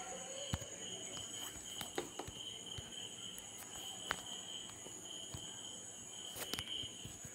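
Faint, steady high-pitched chirring of insects in the background, pulsing slightly, with a few soft clicks.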